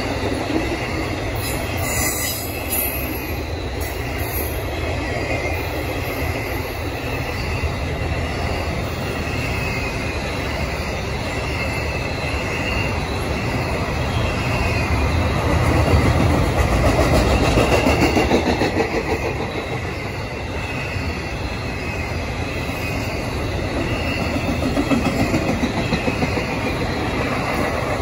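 Intermodal freight cars carrying containers and trailers rolling past on the rails: a steady rumble and clatter of wheels, growing louder for a few seconds past the middle.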